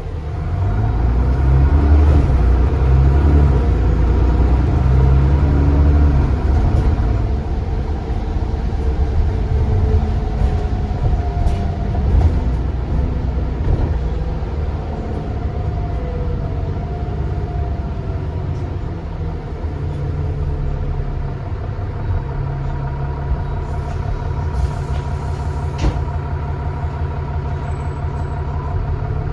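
Bus diesel engine heard on board, pulling hard for the first several seconds with its pitch sweeping up and down through gear changes, then easing to a quieter, steadier note about two-thirds of the way through.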